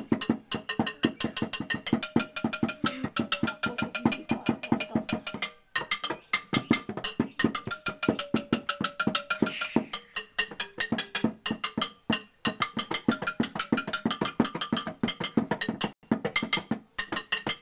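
Music of fast, dense percussion, drum and wood-block-like strikes at several a second, with a few held melodic tones above them.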